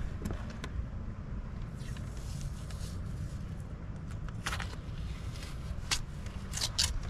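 Blue painter's tape being peeled off a fiberglass boat hull beneath a freshly caulked PVC splash rail, with short crackling rips several times over a steady low rumble.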